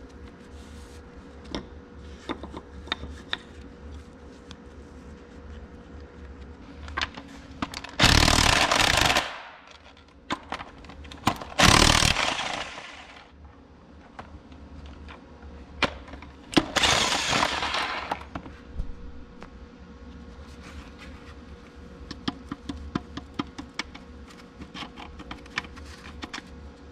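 A power wrench run in three short bursts of a second or two each, loosening the connecting-rod cap nuts on an Oliver 1600 tractor engine, among scattered clinks of metal parts being handled.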